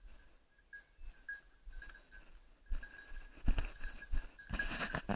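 Footsteps crunching through dry bracken, leaves and twigs on the forest floor, soft at first and then loud and irregular from about halfway through.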